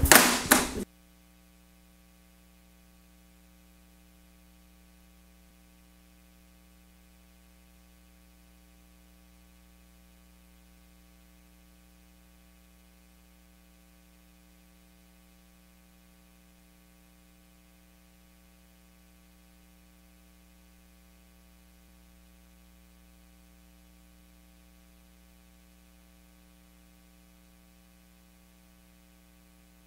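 Steady low electrical hum, mains hum in the recording, with no other sound; a voice cuts off within the first second.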